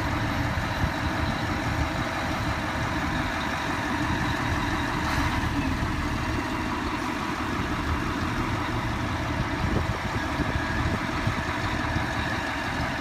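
Heavy diesel engines of tractors and a Ropa Tiger beet harvester running steadily at an even pitch, with no revving.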